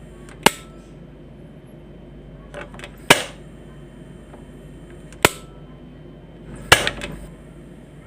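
Quantum gas stove's control knob being turned on and off: four sharp snaps about two seconds apart, with lighter clicks just before the second and just after the fourth.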